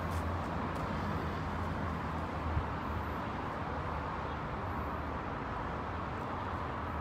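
Steady low hum and hiss of outdoor background noise, with no distinct events.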